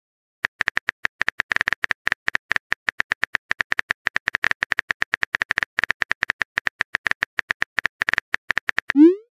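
Phone keyboard typing sound effect: rapid, even clicks, about eight to ten a second, that end with a short rising whoosh of a message being sent.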